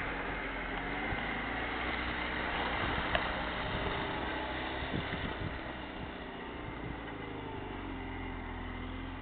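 Lada Niva 4x4's engine running as it drives off-road, steady at first, its pitch easing down in the second half.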